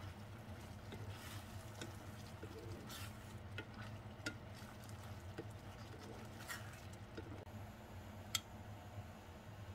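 Wooden spatula stirring thick mapo tofu sauce in a nonstick pan, with scattered light scrapes and taps and a faint sizzle over a steady low hum. Near the end it changes to water simmering in a saucepan.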